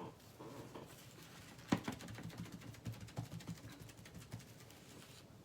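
Small irregular taps and rustles of hands working with painting and leaf-stamping materials, with one sharper click about two seconds in.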